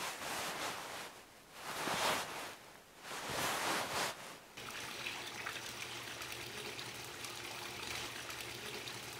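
Plastic sheeting dragged across a tile floor in three pulls, each a swell of rustling scrape about a second long. About four and a half seconds in this gives way to a steady trickle of water spilling from a swimming pool's fountain.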